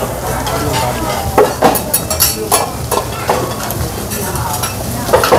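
Food sizzling on a teppanyaki hotplate, with metal spatulas scraping and clicking sharply against the steel several times in the middle.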